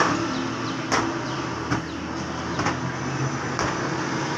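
A cloth slapping down on a bed sheet five times, about once a second, as the bed is dusted off, over a steady low hum.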